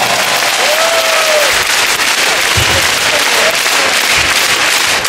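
Crowd applauding: dense, steady clapping from players and spectators in a handball hall.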